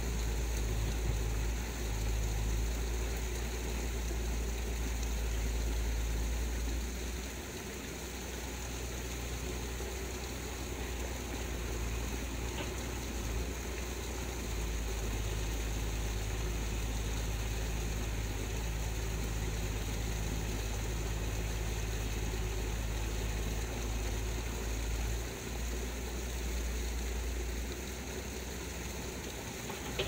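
Steady rush of a muddy, fast-flowing stream, with a deep low rumble underneath.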